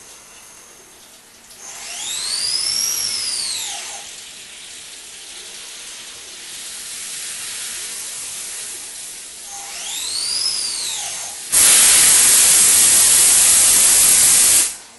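CNC three-axis milling machine cutting a metal block under flood coolant: a hissing spray with a whine that rises and then falls in pitch, twice. Near the end a much louder, steady hiss starts suddenly and stops abruptly about three seconds later.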